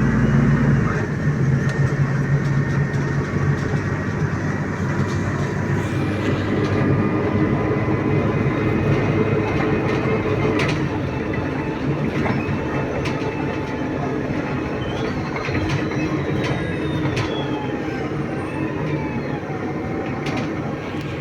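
City bus running and driving, with a steady low drivetrain hum and whines that slowly rise and fall in pitch as it changes speed.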